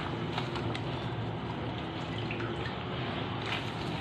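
Water dripping and splashing as cut cabbage leaves are washed by hand in a stainless steel bowl, with scattered small ticks and drips over a steady wash of water.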